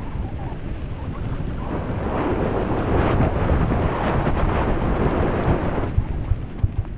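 Mountain-bike tyres rolling fast over a loose dirt-and-gravel downhill trail, with wind buffeting the action camera's microphone: a continuous rumble that grows louder and rougher from about two seconds in and eases near the end.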